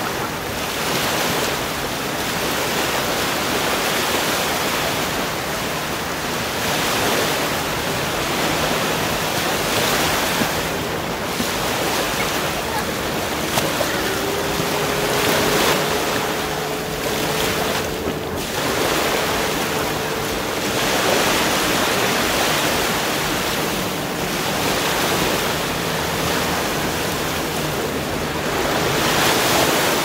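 Sea surf on a beach: waves breaking and washing in, swelling every few seconds, with some wind on the microphone. A faint steady hum joins about halfway through.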